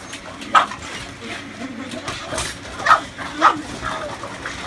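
Boston Terrier barking in a few short, sharp bursts while playing with a ball.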